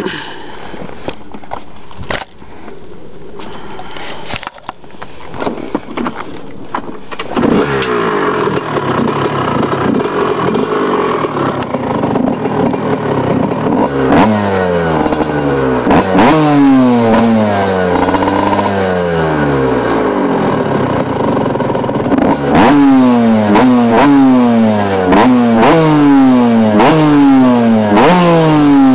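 2000 Kawasaki KX125's single-cylinder two-stroke engine being kicked over with a few knocks, catching about a quarter of the way in, then running and revved in repeated sharp blips that rise and fall, after a fresh rebuild.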